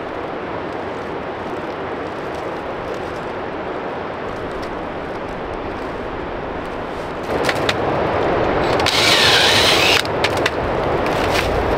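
Steady background noise, then from about seven seconds in, footsteps crunching and rustling through dry fallen leaves, loudest a little before the end.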